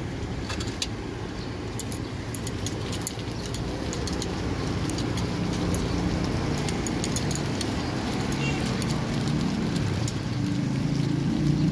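Street noise of motor traffic, with a low engine rumble that grows louder toward the end, and scattered light clicks.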